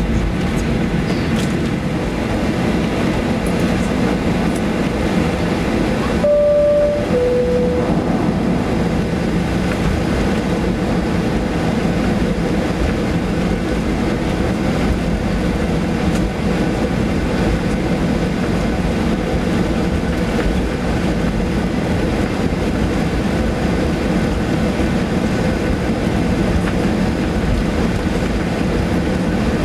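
Steady cabin noise of a Boeing 737 taxiing: engine hum and rolling rumble. About six seconds in, the cabin's two-tone high-low chime sounds once.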